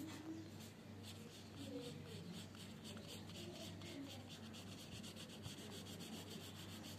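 Pen drawing on paper: faint, quick scratchy strokes, several a second, as the tip is dragged along the lines.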